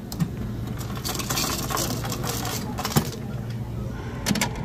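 Plates clinking as one is taken from a stack of white plates: a few sharp clicks, two close together near the end, over a steady low room hum.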